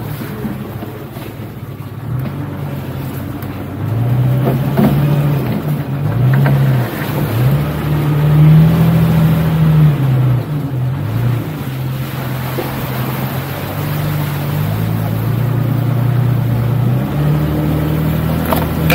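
Jeep Cherokee XJ engine running under load as the Jeep drives off-road, its note rising and falling with the throttle and getting louder about four seconds in.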